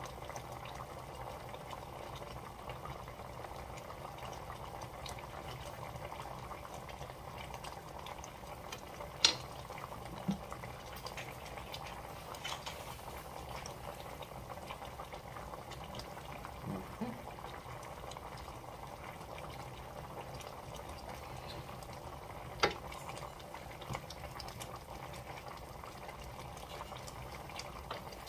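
Red wine boiling hard and reducing in a stainless steel pan of beef short ribs, a steady bubbling. Two sharp clicks cut through it, about nine seconds in and again about twenty-three seconds in.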